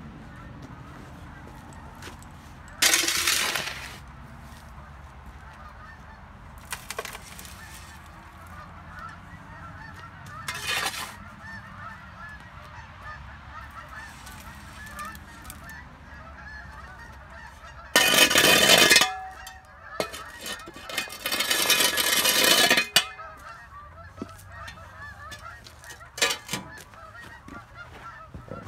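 Scoops of dirt and gravel poured from a bucket into the bed of an RC Western Star dump truck, about five rattling pours of a second or so each, the loudest two near the two-thirds mark. A steady motor whine runs underneath.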